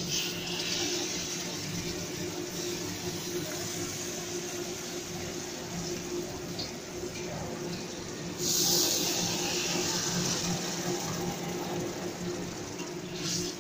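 Coconut milk sizzling as it is poured into a hot wok of sautéed spice paste and stirred in with a metal spatula. The sizzle flares louder about eight seconds in, over a steady low hum.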